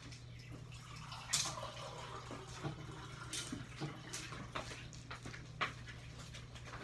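Scattered light clinks and knocks of kitchen work, with a faint wet, dripping quality, over a steady low hum.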